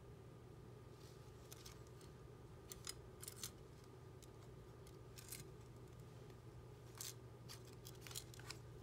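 Short clicks and scrapes of a metal SmallRig camera cage being handled and fitted around a Sony a6500 camera body, in several small clusters over a steady faint hum.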